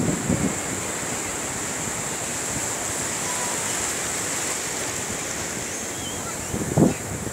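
Shallow surf washing up a sandy beach: a steady, even rush of wave wash and foam. A brief low rumble, the loudest sound here, comes near the end.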